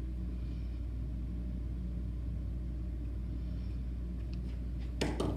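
Steady low hum of room background noise, with a few light clicks near the end.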